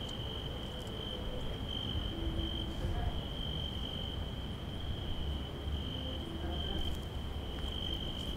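Crickets chirping in a steady, high-pitched night chorus, with a low rumble underneath.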